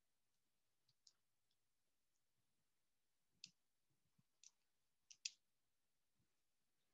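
Near silence with a handful of faint, short clicks, two of them close together about five seconds in.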